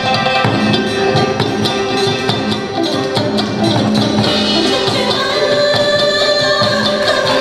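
Traditional Vietnamese water-puppet music with singing and steady clicking percussion, cutting off sharply at the very end as the piece finishes.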